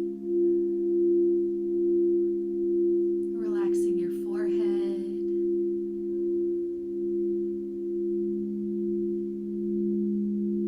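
Singing bowls sounding together in a steady drone of three low, pure tones that swell and fade about once a second. About three and a half seconds in comes a brief, breathy voice sound.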